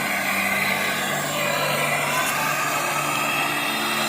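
MAPP gas torch flame running steadily, a constant hiss with a low hum under it, while brazing shut a refrigerant leak in a window-type air conditioner's tubing.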